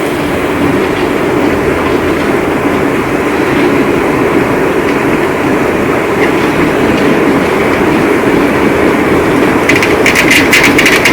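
Heavy rain pouring with a long low rumble of rolling thunder. Near the end, sharp crackling begins on top.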